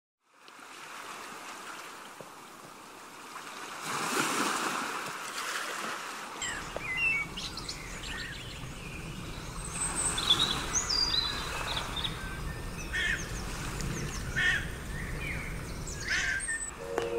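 Seaside ambience: a steady wash of surf that fades in, swells about four seconds in, and deepens a little later. Birds chirp again and again from about seven seconds in.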